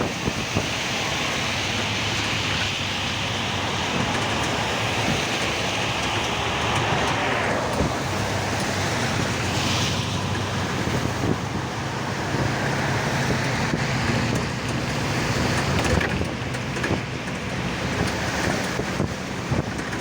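Traffic on a rain-wet road: a steady vehicle engine hum under a continuous hiss of rain and tyres on wet tarmac. A higher hiss drops away about seven seconds in.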